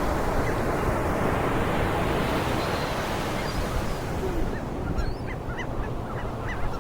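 Ocean surf washing in on the beach, a steady rush that fades after about four seconds; over the fading surf a bird calls in a quick run of about ten short high chirps.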